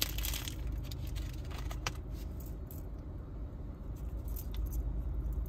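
Light handling noise of a metal keyring on a lanyard: a few faint clicks and clinks, one sharper click about two seconds in, over a low steady hum.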